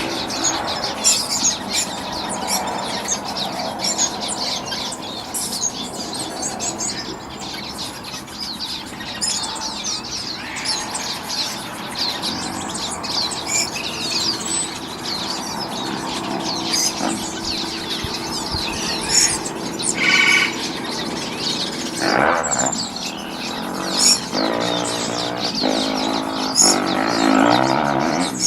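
Many small birds chirping and tweeting at once, a dense, continuous chorus of short high calls, with some lower, longer pitched calls joining in near the end.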